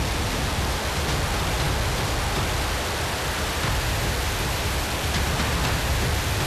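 Chollima-1 rocket's engines at liftoff: a steady, dense rushing noise of rocket exhaust, heaviest in the lows.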